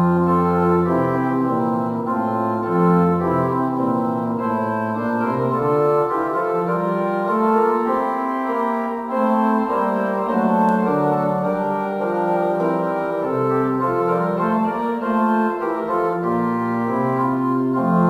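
Organ playing slow, sustained chords that change every second or so, with deep bass notes under the opening that drop out about a second in.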